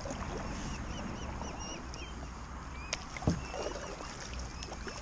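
Kayak being paddled, with a small bird chirping over and over in the background until about two and a half seconds in, and a couple of sharp knocks about three seconds in.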